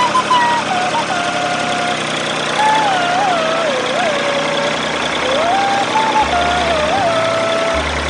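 Small electric motor of a DIY toy tractor whining as it pushes sand with its bulldozer blade, its pitch wavering up and down as the load changes. A low hum comes in and out in steady blocks near the end.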